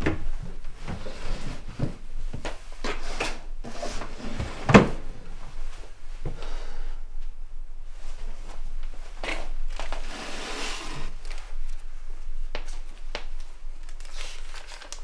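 Someone handling things on wooden shelves in a small room: scattered light clicks and knocks, one sharper knock about five seconds in, and a stretch of rustling around ten seconds in.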